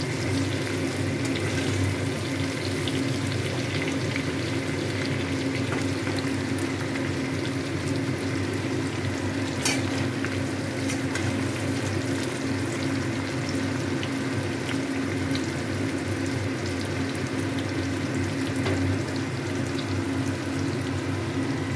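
Chunks of raw green mango sizzling and crackling in plenty of hot mustard oil in a steel kadai, a steady frying sound throughout. A single sharp click about ten seconds in.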